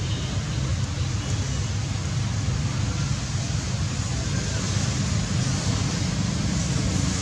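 Steady outdoor background noise with a low rumble and an even hiss, unchanging throughout.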